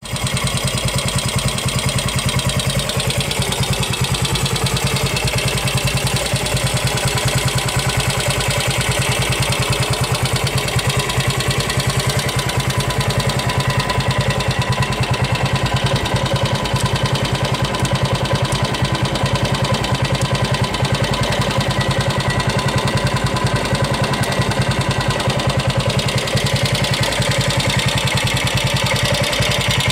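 Ducati 350 Sebring single-cylinder four-stroke engine idling steadily with an even beat.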